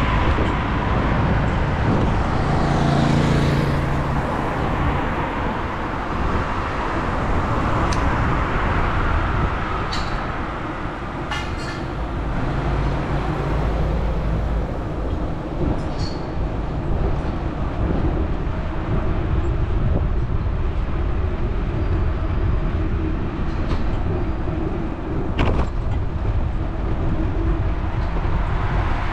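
City street traffic heard from a moving bicycle: a steady rumble of passing vehicles, with a pitched hum of a vehicle going by early on, another later, and a few sharp clicks.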